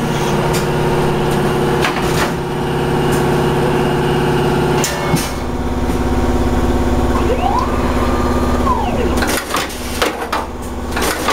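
Frozen fish cutting machine running with a steady motor hum. A drive whine rises, holds and falls, and then comes a run of sharp cracks near the end as the gang of blades cuts through the frozen fish.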